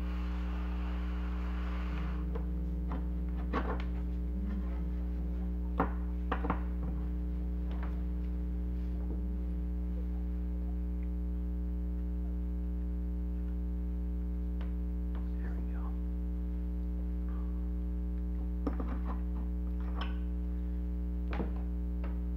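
A steady low electrical hum with a short hiss in the first two seconds. A handful of sharp clicks and taps come through, most of them between about three and seven seconds in and two more near the end.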